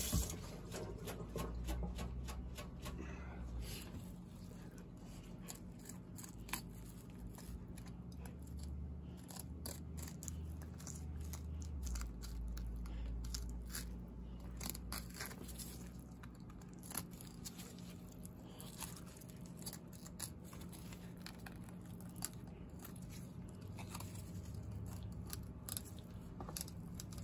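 Fillet knife scraping and ticking along a walleye's backbone and rib bones as the fillet is cut away, with many small irregular clicks, over a faint steady low hum.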